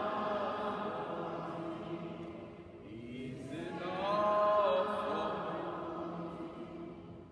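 A slow sung worship chorus: voices singing long held notes, with the loudest held note about four seconds in.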